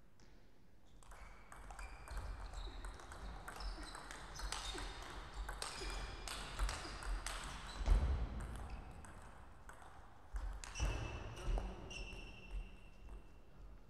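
Table tennis rally: the plastic ball clicking off the rubber bats and bouncing on the table in quick succession, with a heavy low thump about eight seconds in. After a short lull the ball clicks and bounces a few more times near the end.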